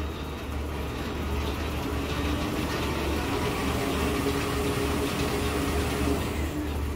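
Hobart HL600 60-quart planetary dough mixer running empty: a steady motor and gearbox hum with a steady tone over it. Near the end the speed is turned down and the tone changes pitch.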